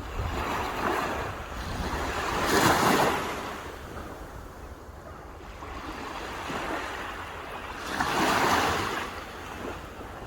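Waves breaking on a shore: a steady wash of surf that swells twice, about three seconds in and again near the end, as a wave breaks.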